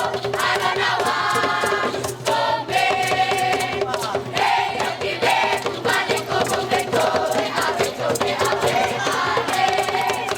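A choir singing with percussion, sharp hits recurring through the singing.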